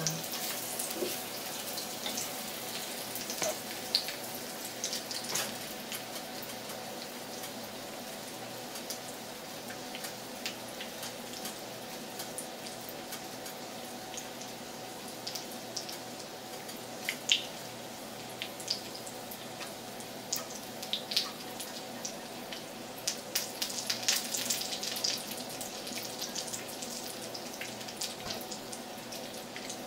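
Breaded stuffed chicken breast searing in hot oil in a skillet: a steady sizzle with frequent sharp spattering pops, which come thickest about three-quarters of the way through.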